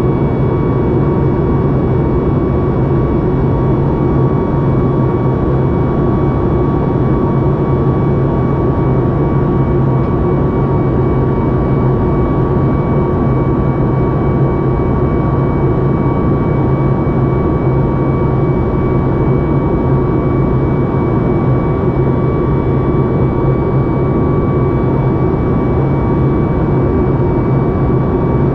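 Boeing 737 MAX 8 cabin noise in flight, heard from a window seat: a steady rush of engine and airflow noise from its CFM LEAP-1B engines, with a low hum underneath and a couple of thin, steady whining tones above it.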